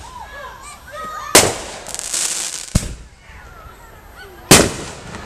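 Consumer fireworks going off: three sharp bangs, about a second and a half in, just under three seconds in and about four and a half seconds in, with a high hiss lasting about a second after the first bang.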